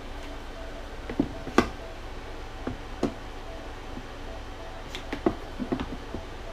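Scattered sharp clicks and taps of hands handling small parts, about ten in all, the loudest between one and two seconds in and after five seconds, over a steady low hum.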